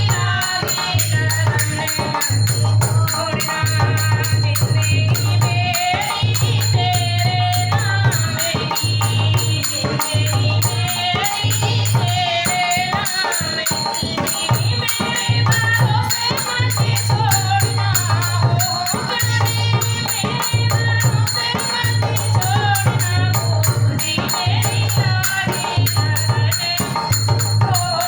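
Hindi devotional song to the Mother Goddess (maiya ke geet): voices singing over a steady pulsing drum beat with rattling percussion.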